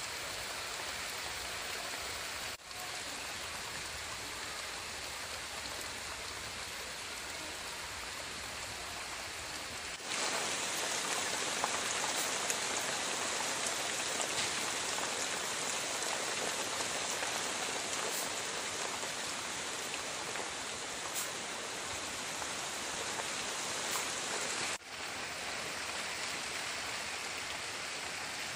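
Heavy rain pouring onto palm fronds and thick leafy trees, a steady hiss. It grows louder and brighter about ten seconds in, and drops out for an instant twice.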